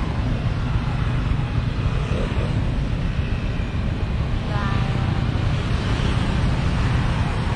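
Steady low rumble of a motorbike engine idling close by.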